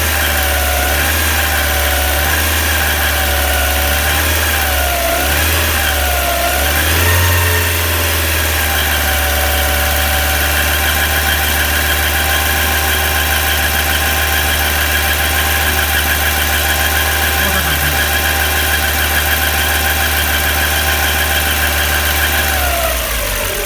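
Iran Khodro Samand engine, warmed up, held at raised revs, with a steady high squeak from the front of the engine. The squeak appeared after the timing belt, idler rollers and water pump were replaced, and it comes only on a warm engine above about 2000 rpm. The revs waver at first, then hold, and drop back near the end.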